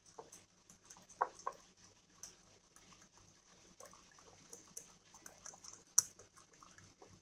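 Wire whisk stirring batter in a glass bowl: faint, irregular ticks of the wires against the glass, with one sharper click about six seconds in.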